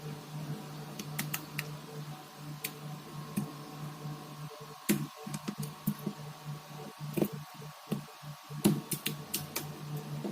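Irregular small clicks and taps of tools and plastic parts against a smartphone being taken apart, coming thicker in the second half, over a steady low hum.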